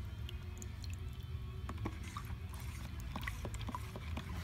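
Stir stick handled in a cup of freshly mixed metalflake paint: scattered small wet clicks and squishes over a steady low hum.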